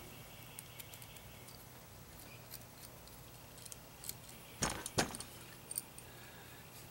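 Small metal clicks and clinks of a nut and washer being handled and run onto a threaded rod by hand, with two sharper metallic clinks close together a little past the middle.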